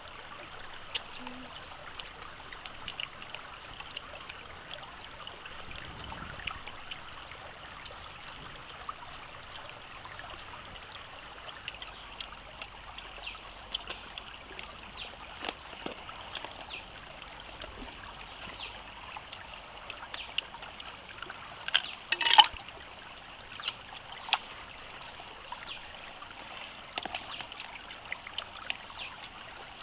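A shallow stream running over rocks, a steady babbling hiss, with scattered small clicks and a short cluster of sharp crackles about two-thirds of the way through.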